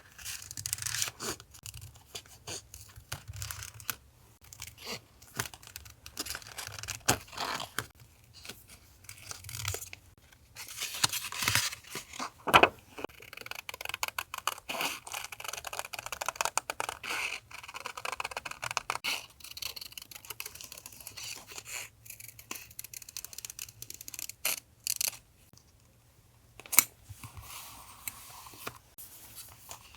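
Paper being handled and torn for a journal collage: irregular rustling and tearing with scattered taps and clicks, two of them sharp and loud.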